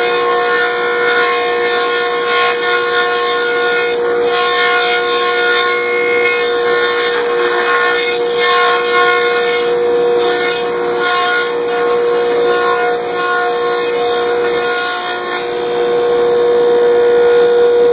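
Mattison 226 woodworking machine running with a steady high hum. Boards feeding through its cutters add rushes of cutting noise that come and go every second or two.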